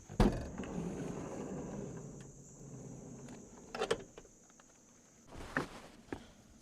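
Rustling and handling noises: a sharp click, about three seconds of rustling, a short knock near the middle and a brief second rustle near the end. A steady high insect chirring runs underneath.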